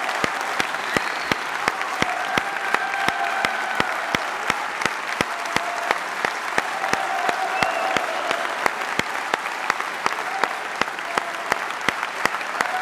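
Audience applauding, with loud claps falling into an even beat of about three a second.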